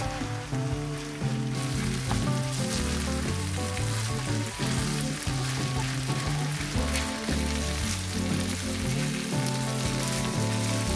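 Egg fried rice sizzling in a nonstick frying pan as it is stirred and turned with a slotted spatula; the sizzle picks up about a second and a half in. Background music plays under it.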